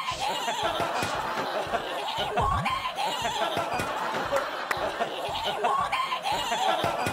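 A group of people laughing over a person's playful vocal sounds, with short rising-and-falling cries throughout.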